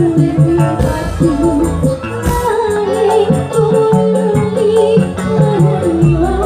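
Live band music with a woman singing into a microphone, over electric keyboard, bass and drums playing a steady beat.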